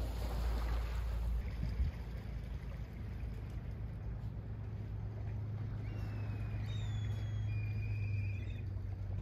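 Steady low hum of a ferry's engine, with wind buffeting the microphone for the first second and a half. Near the end come a few short, high whistled calls.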